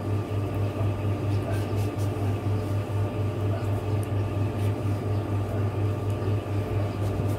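A steady low mechanical or electrical hum with a regular throb a few times a second, and faint light ticks over it.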